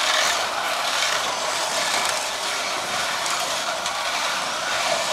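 Carrera slot cars running on a plastic track: a steady high whirring of their small electric motors and wheels in the track lanes.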